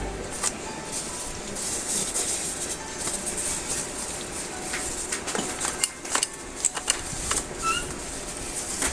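Scattered light clicks and small knocks of hard plastic objects being handled, irregular and sparse over a faint hiss.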